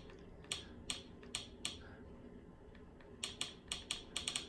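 Button clicks of a Fire TV remote pressed to scroll through the menu: a few spaced clicks, then a quick run of them near the end, over a faint room hum.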